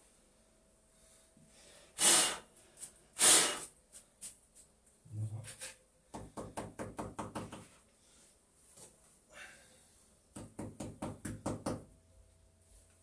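A mason's trowel working cement-based block adhesive: two loud scrapes about two and three seconds in, then two runs of quick taps, about six a second, around six and ten seconds in.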